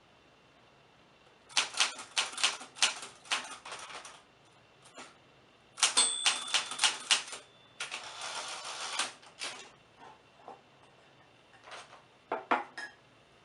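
Typewriter keys struck in quick runs of clicks with short pauses between them, and a longer dense rasping stretch about eight seconds in.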